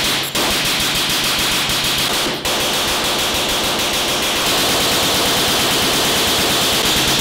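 Metal pulsed detonation engine firing a rapid, even train of sharp bangs at about ten detonations a second, like a machine gun, with a brief stutter near the start and again about two and a half seconds in. The detonations are clean and consistent.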